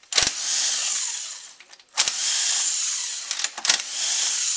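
Hand-held power driver with a T27 Torx bit spinning out valve body bolts on an automatic transmission. It runs in three spells of about a second each, with a click as each one starts.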